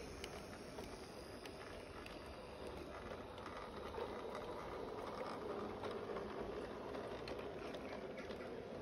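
Garden-railway rolling stock running past on the track: a steady rolling rattle of small wheels with many light, irregular clicks as they cross the rail joints.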